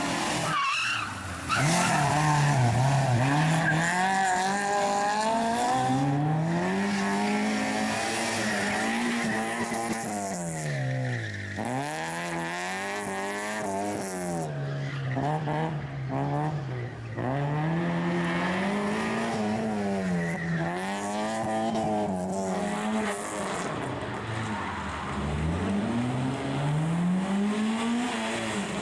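Small rally hatchbacks' engines revving hard through a tight cone slalom, their pitch rising and falling again and again, about every two seconds, as the drivers accelerate and lift between gates, with tyres squealing.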